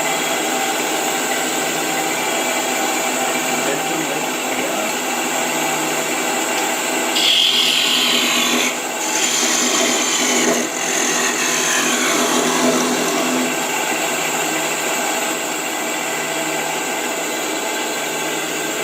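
Wood lathe running with a steady motor hum while a turning tool cuts a small piece of timber. The cutting is loudest between about 7 and 9 seconds in.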